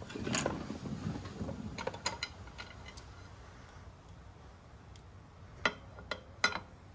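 A sway bar end link and its bolts being handled and lined up into place on the bar. A scraping rustle for the first couple of seconds, a few light clicks, then several sharp metal clicks near the end.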